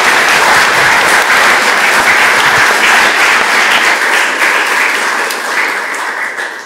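Audience applauding, tapering off near the end.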